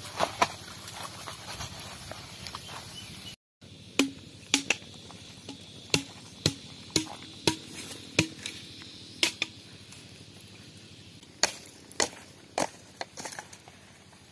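A steady hiss with small clicks, cutting out briefly about three and a half seconds in. After that comes a long series of sharp, separate knocks like chopping, unevenly spaced about half a second to a second apart.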